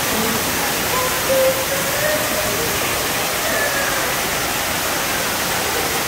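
Steady rush of a waterfall: an even, unbroken hiss of falling water, with faint snatches of distant voices.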